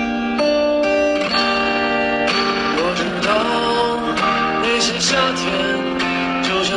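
Background music: a plucked guitar melody of ringing notes one after another.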